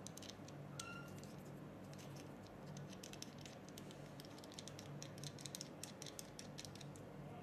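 Faint, irregular small clicks and scraping of metal threads as a metal cone adapter is screwed onto an e-cigarette battery by hand, with one brief high ping about a second in.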